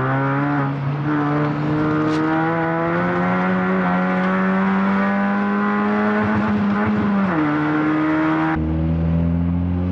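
Modified Ford Fiesta's 1.6-litre engine running through a new Hornet cat-back race exhaust, heard from inside the car. The low-toned note climbs steadily as the car accelerates, drops with a gear change about seven seconds in, then holds steady. The exhaust is still blowing a little at its clamped joints.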